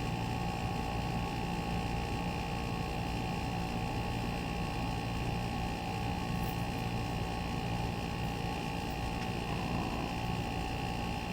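Split air conditioner's outdoor unit running with a steady hum and several constant tones.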